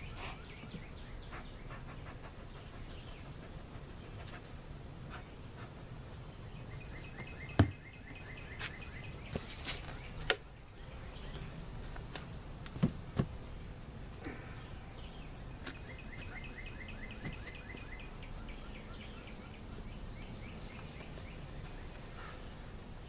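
Outdoor ambience with a songbird giving two runs of rapid repeated chirps, and a few sharp knocks from the wooden hive boxes being handled, the loudest about seven and a half seconds in and two more close together near thirteen seconds.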